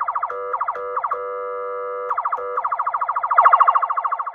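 Electronic police siren through a speaker, sounding its "Traffic" tone: a buzzy, fast-pulsing warble broken several times by short steady blasts, with one longer steady stretch about a second in. It is pretty loud even at its lowest volume setting.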